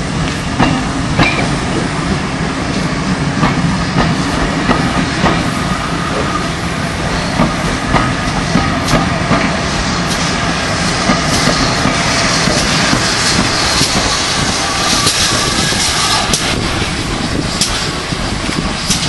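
Passenger coaches being propelled slowly in reverse by the GWR 4-4-0 steam locomotive City of Truro, wheels clicking over the rail joints every half second to second over a steady rumble.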